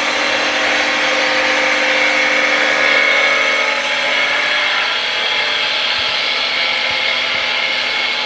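Automatic wood lathe running and cutting a wooden workpiece: a steady scraping cut over a humming machine tone, a little louder around three seconds in.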